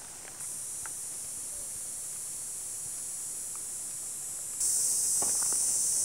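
Steady high-pitched insect drone that gets louder in two sudden steps, about half a second in and again near the end. A few footsteps on a dirt trail come in the last second.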